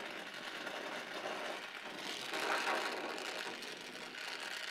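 Gas torch flame hissing steadily as it heats a freshly brazed knife tang to a low orange for a normalizing, stress-relief heat; the hiss swells briefly about two and a half seconds in.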